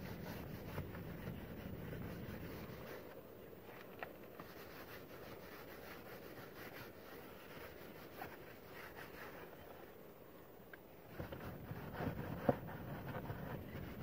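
Paper towel rubbed over a car's plastic inner door panel: soft wiping with a few light taps.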